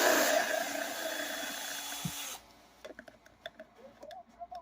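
A handheld power tool runs in one burst of about two and a half seconds, then cuts off, followed by a few light clicks and taps of parts being handled.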